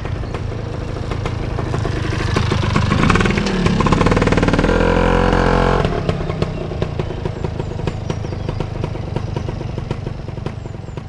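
Tuned vintage two-stroke Vespa scooter engine riding up and by. Its revs rise and it grows loud from about two seconds in, drops off sharply at about six seconds, then runs on lower and fades toward the end.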